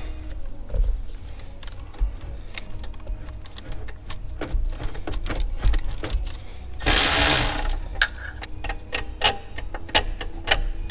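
Irregular light metallic clicks and clinks of a wrench, bolts and loose washers while 13 mm bolts are undone from the catalytic converter brackets, with a brief rasping burst about seven seconds in.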